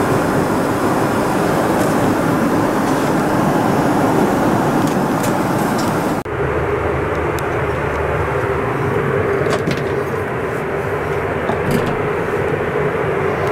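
Steady rushing cabin noise of a Boeing 777-300ER in cruise: airflow and engine drone. About six seconds in the noise changes abruptly, becoming duller with a low hum, and a few light clicks follow.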